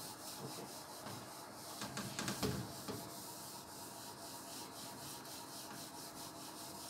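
Handheld eraser rubbing back and forth across a whiteboard, wiping off marker writing: a steady scrubbing made of many quick strokes.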